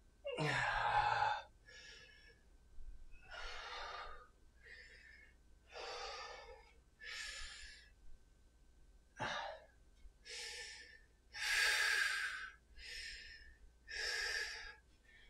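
A man breathing hard from the exertion of a one-legged clubbell exercise: about a dozen loud breaths in and out, roughly one a second, a few ending in a short voiced sigh.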